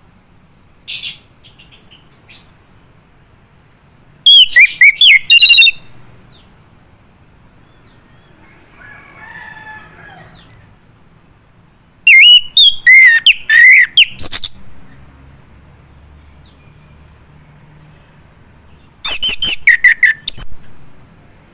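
Male chestnut-capped thrush singing: loud bursts of rapid, varied whistled notes gliding sharply up and down, three long phrases separated by pauses of several seconds.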